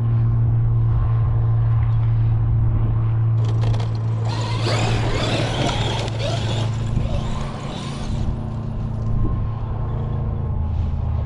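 A steady low engine hum throughout. About four seconds in, a loud hissing noise starts, lasts some four seconds, then stops.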